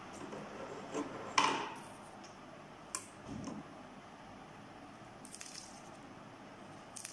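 Handling sounds on a tabletop as a steel ruler is laid across rolled newspaper tubes and a marker pen is picked up. There is a sharp scrape-and-clatter about a second and a half in, then a short click near three seconds.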